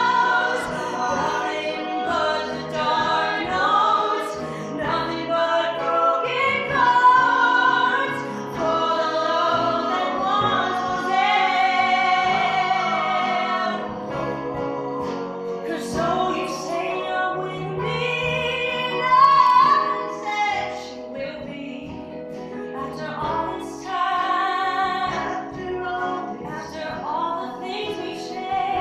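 A woman singing a song live, accompanied by piano, acoustic guitar and upright bass.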